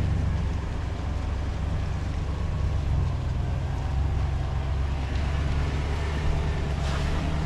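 Helicopter's steady deep drone heard from inside the cabin, a low hum with several steady tones under it. It starts suddenly.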